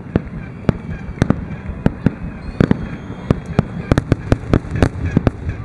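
Aerial firework shells bursting in a finale barrage: a rapid, irregular string of sharp bangs, about four or five a second, over a continuous low rumble.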